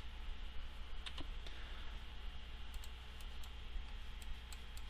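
Scattered faint clicks of a computer keyboard and mouse, a few keystrokes spread irregularly, over a steady low electrical hum and hiss.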